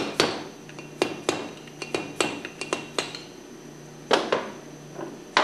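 Screwdriver tapping a pump's mechanical seal seat out of its flange from the backside: about a dozen light, irregularly spaced taps, each with a short ring.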